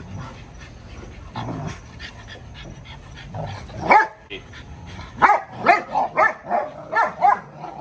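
Dogs barking during rough play: one loud bark about four seconds in, then a quick run of about seven barks, roughly three a second.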